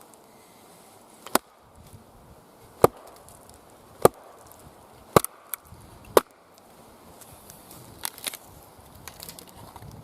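Wetterlings Hudson Bay axe striking wood while splitting firewood on a chopping log: five sharp chops about a second apart, then a few lighter knocks near the end.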